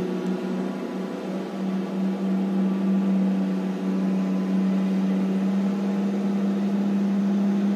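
Heavy diesel mining machinery running with a steady, even drone that grows a little louder about two seconds in.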